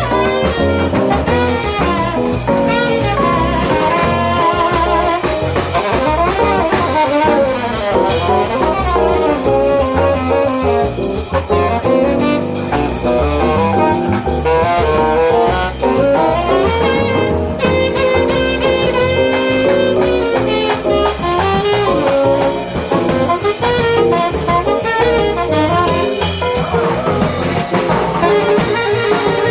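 Jazz quartet playing live: a melody line moving over steady drums.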